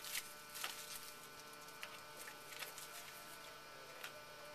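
Faint, scattered clicks and ticks of baseball trading cards being handled and flipped one by one, over a faint steady hum.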